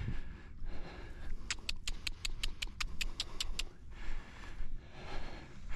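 A quick run of about ten sharp clicks, roughly five a second, starting about one and a half seconds in, over a low rumble of wind or handling on the microphone.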